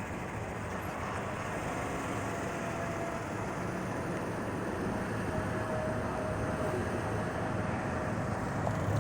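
Freight train rolling past, a steady rumbling noise of wheels on rail that slowly grows louder.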